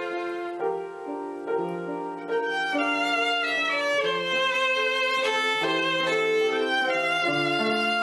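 Background music led by a violin, playing a melody of held notes that change every second or so.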